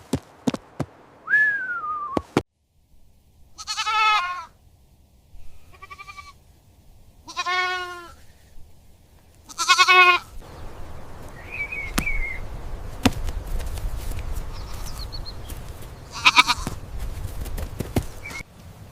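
Young livestock bleating, about five high, quavering bleats with pauses between them. There is a short falling whistle-like chirp about a second in, and a steady background rush through the second half.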